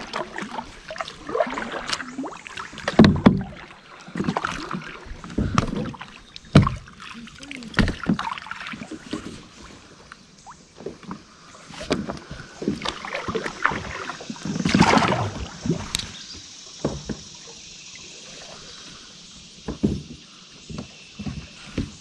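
Kayak paddling: the paddle blades dip and splash in the water, with dripping and now and then a sharp knock. A faint steady hiss comes in about two-thirds of the way through.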